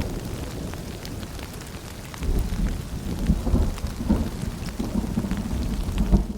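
Rain falling with low rumbles of thunder: one rumble fades over the first two seconds and another swells about two seconds in, over scattered drops.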